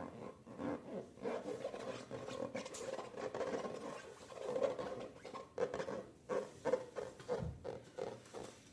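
Slime being squished, stirred and stretched by hand, making an irregular run of sticky squelches, small pops and clicks.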